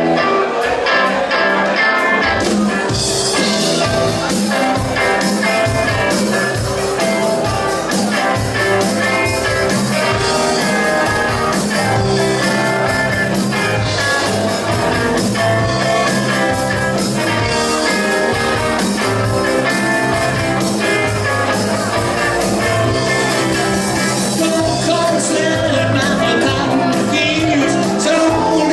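Live rock band playing a 1970s rock medley on electric guitars, bass guitar, drums and keyboards, amplified through a PA with a steady drum beat throughout.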